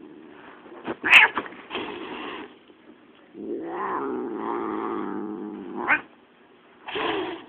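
Domestic cat growling and yowling: a low, drawn-out growl that swells into longer yowls, with sharp louder sounds about a second in and near six seconds.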